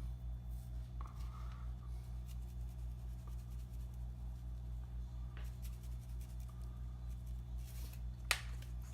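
Quiet kitchen handling noises while seasoning raw chicken breasts: faint rustling and light taps, with one sharp click near the end, over a steady low hum.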